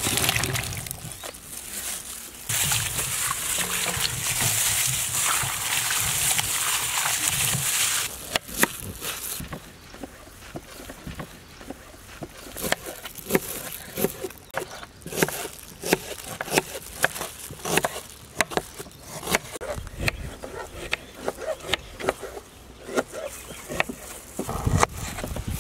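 Tomatoes and green chillies are washed in a steel bowl of water, with water splashing and sloshing for the first several seconds. After that, a kitchen knife slices onions on a plastic cutting board, making a long run of quick, irregular, sharp chopping taps.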